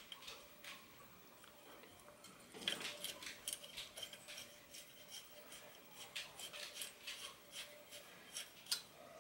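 Faint small clicks and scrapes of a steel shift cable being fed by hand through a short length of cable housing at the rear derailleur, coming in scattered ticks that grow more frequent about two and a half seconds in.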